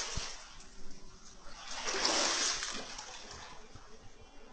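Floodwater splashing: one splash fading as it starts, and a second, louder swell of splashing about two seconds in that dies away over about a second.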